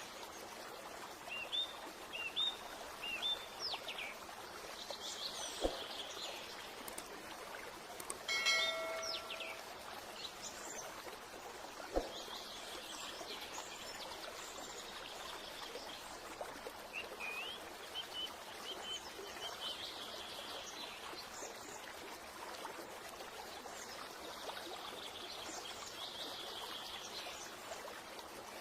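Birds chirping in short bursts of quick calls over a steady rush of running water. About eight seconds in, a brief ringing tone like a chime sounds once.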